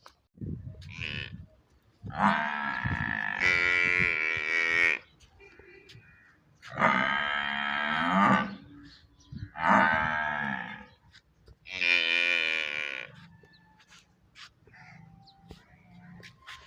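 Domestic water buffalo mooing: a short faint call, then four long, loud calls a second or two apart, the first the longest.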